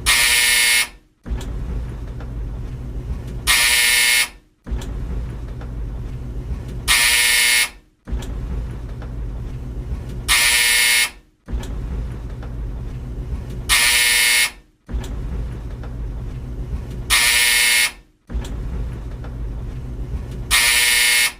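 Old tumble dryer running with a low steady rumble, broken about every three and a half seconds by its loud, harsh buzzer sounding for under a second. The buzzer sounds seven times.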